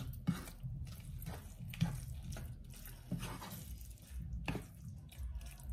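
A utensil scraping and knocking in a bowl as the quinoa stuffing mix is stirred with sauce, irregular short knocks and scrapes over a low steady hum.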